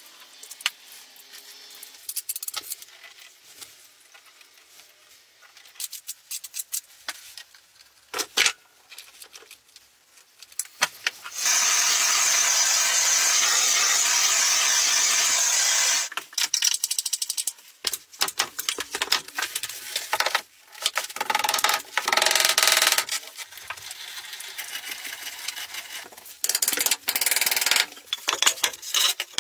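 Light clicks and knocks of stones and tools being handled, then a handheld gas torch hissing loudly and steadily for about five seconds as its flame plays over the stone facing, followed by more scattered knocks and rattles.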